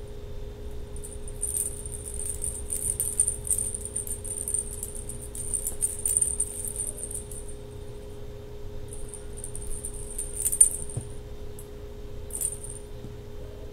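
Small bells jingling inside hanging plastic lattice cat-toy balls as a kitten bats them. The jingling comes in bursts: a long run through the first half, another about two-thirds through and a short one near the end. A steady low hum runs underneath.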